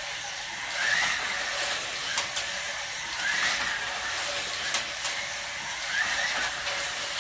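Carrera GO 1:43-scale slot cars running laps on a plastic track: a steady electric-motor whir with a short rising whine that comes round about every second and a bit, and scattered sharp clicks.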